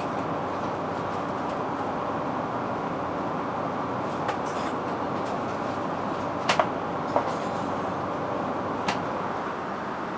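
Steady cabin noise of an Airbus A380 in cruise flight: an even rush of airflow and engine noise. A few short sharp clicks come through it, two close together about six and a half seconds in, another just after seven, and one near nine seconds.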